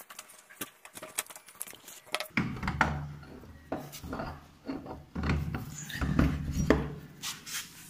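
Clicks, rubbing and dull knocks of metal parts being handled as a scooter's alloy wheel is fitted back on.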